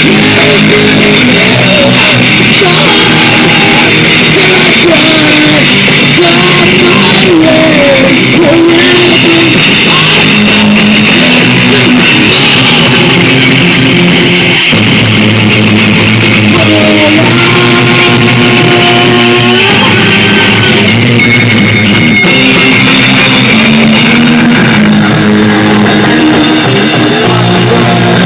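Live rock band playing loudly: guitar and drum kit in a continuous full-band passage.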